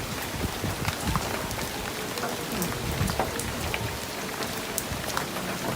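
Steady rain falling in a storm, with many separate drops striking close by against a constant hiss of rainfall.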